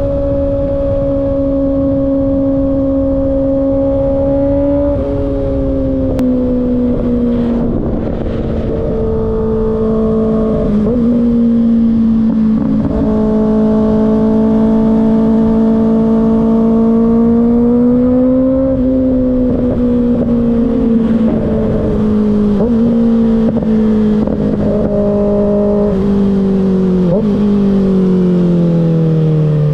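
Kawasaki ZX-6R's inline-four engine through an M4 slip-on exhaust, ridden at speed under steady wind rush. The engine note holds high, climbs slowly through the middle, then drops away near the end as the bike slows.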